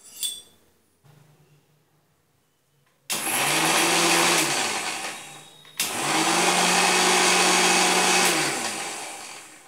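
Electric mixer grinder with a small steel chutney jar grinding coriander leaves, green chillies and ginger. It runs in two pulses, about three seconds in and again near the six-second mark, its whine rising as it spins up and falling as it winds down after each pulse.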